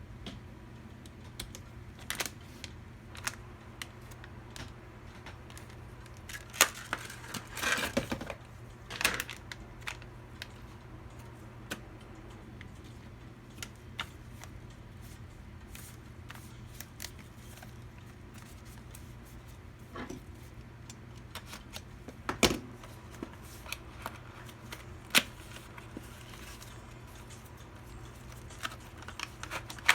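Scattered clicks, taps and rustles of computer parts and packaging being handled, with a denser rustle about a quarter of the way in and a few sharper clicks later, over a steady low hum.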